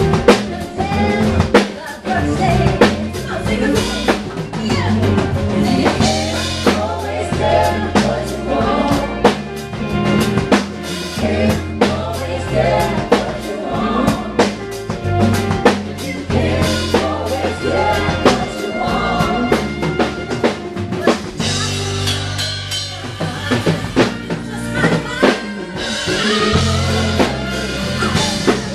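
Live band playing with a full drum kit, snare and bass drum keeping a steady beat under bass and other instruments.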